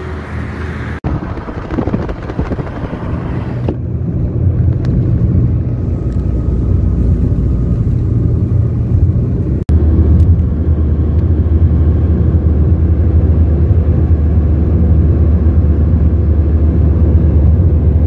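Steady low rumble of a car driving at speed, heard from inside the cabin: road and engine noise, broken by brief dropouts about a second in and near ten seconds.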